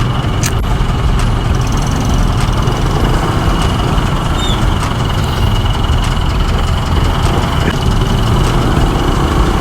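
Motorcycle running while being ridden through traffic: a steady, loud low rumble of engine and road noise.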